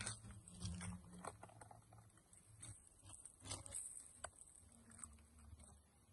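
Dog eating from a dish: faint, irregular wet chewing and licking smacks. Dry leaf litter is rustled and handled near the start.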